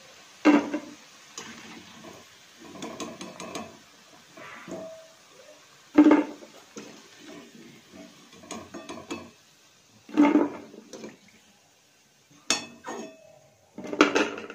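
A metal ladle scrapes and clanks against a metal kadhai while fried lentil fritters are scooped out of the hot oil. There are about five loud ringing clanks, with softer scraping and rattling between them.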